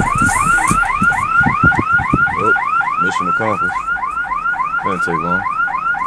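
Car alarm sounding a fast, even run of rising chirps, about five or six a second, set off by the bass from a car audio system a few cars away. There are short low thumps in the first couple of seconds.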